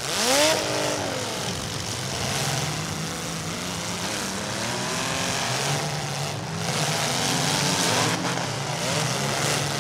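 Several demolition-derby compact cars' engines revving hard together as the heat starts: one sharp rev rising and falling in the first second, then a dense mix of engines rising and falling in pitch as the cars accelerate and manoeuvre.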